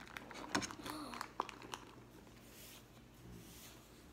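Faint handling noises from a slime-filled rubber squishy star toy being squeezed by hand: a few soft clicks in the first second and a half, then only a faint rustle.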